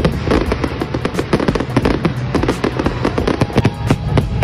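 Aerial fireworks bursting in quick succession: a dense run of bangs and crackles, several a second, with music in the background.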